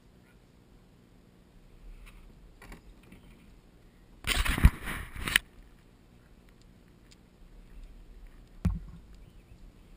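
A hand gripping and handling a GoPro camera: a loud scraping rustle lasting about a second, about four seconds in, then a single knock near the end.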